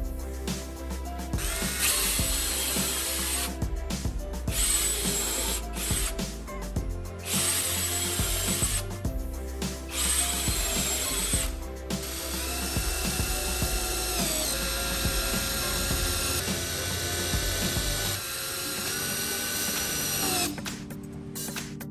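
A power tool such as a drill running in several bursts of a few seconds with short pauses between, then a steadier stretch where its whine steps up and down in pitch. Background music plays throughout.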